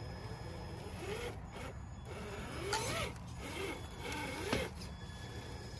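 Traxxas TRX-4 Bronco RC crawler's electric motor and geartrain whining in several short pulls, the pitch rising and falling as the throttle is worked on a rock climb. A single sharp click about three quarters of the way through is the loudest moment.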